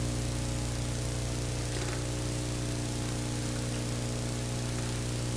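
Steady electrical mains hum with an even layer of hiss; no other sound stands out.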